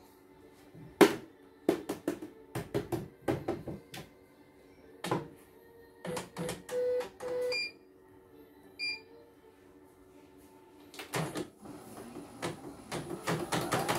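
CNY portable computerized embroidery machine working: a series of sharp mechanical clicks and short motor tones as the embroidery unit moves the hoop, two short electronic beeps in the middle, then a denser, faster run of clicking over the last three seconds.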